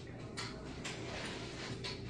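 Quiet eating sounds at a table: a few soft clicks spaced roughly half a second to a second apart, from chewing and chopsticks on tableware.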